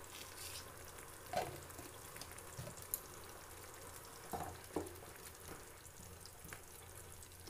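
Wooden spatula stirring a thin, watery chicken curry in a metal pan, giving a few soft knocks and scrapes against the pan, about a second and a half in and again around four and a half seconds. A faint steady simmering hiss lies underneath.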